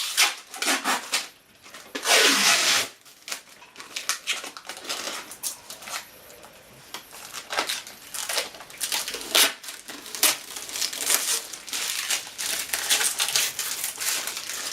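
Protective plastic film and wrapping crinkling and tearing as it is pulled off a PC case, in irregular rustles and crackles with a longer tearing rush about two seconds in.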